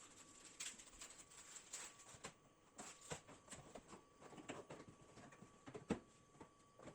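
Faint clicks, taps and rustles from PC parts and their packaging being handled and unboxed, with one sharper click about six seconds in.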